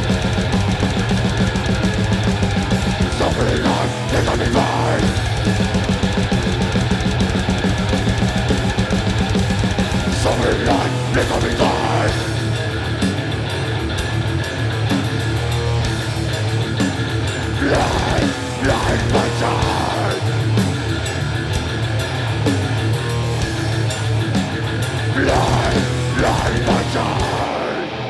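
Death metal band playing live and loud: electric guitar, bass guitar and fast drumming, with harsh vocal phrases coming in four times, about every seven seconds.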